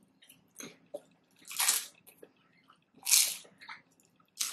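Close-miked eating of chicken nachos: chewing with wet mouth sounds and crunches, the loudest coming as three short bursts roughly a second and a half apart.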